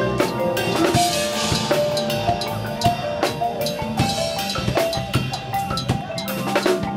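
Percussion front ensemble playing: marimbas and vibraphones sound short pitched mallet notes over a drum kit's kick, snare and cymbal hits.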